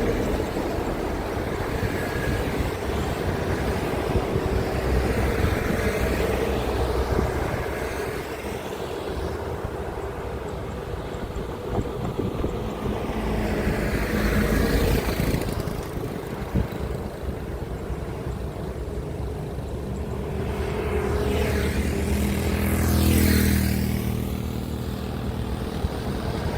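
Highway traffic passing close by: trucks and other vehicles go past one after another, with tyre and engine noise swelling and fading as each passes. The loudest pass-by, with a low engine drone, comes near the end.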